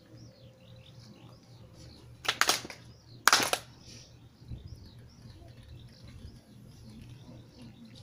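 Two loud claps from a group of people clapping together, about a second apart, each a little ragged as the hands do not land at quite the same instant: the Shinto double handclap (kashiwade) of worship. Birds chirp faintly throughout.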